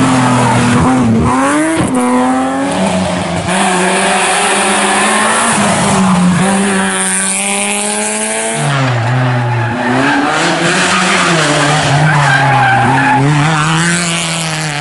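Historic rally cars driven hard through a bend one after another, their engines revving high and dropping in pitch at each gear change, with tyre noise.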